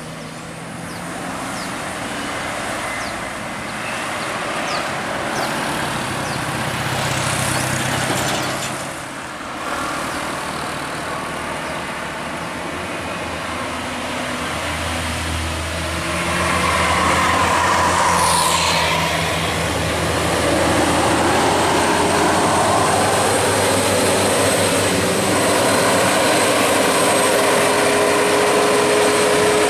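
Heavy road vehicles, buses among them, passing on a road: diesel engines running with tyre and road noise that swells and fades, growing louder about halfway through. A steady hum joins in the last few seconds.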